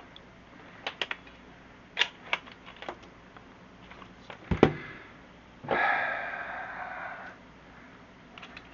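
Scattered clicks and clatter of staple guns and tools being handled on a bench, with one loud thump about four and a half seconds in. Near six seconds comes a steady rasping noise lasting about a second and a half.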